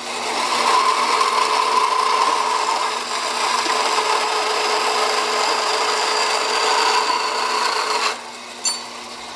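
Bandsaw cutting a piece of stainless steel: a steady sawing noise with a faint high whine that slowly drops in pitch. It stops abruptly about eight seconds in, followed by a short click.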